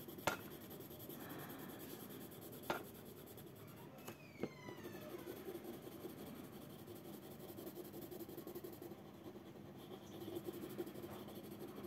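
Blue coloured pencil shading back and forth on a paper worksheet: faint, steady scratching, with a few light taps.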